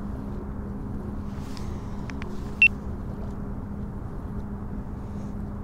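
A motor's steady hum with a constant low tone, most likely the boat's own motor running, and a single short high beep about two and a half seconds in.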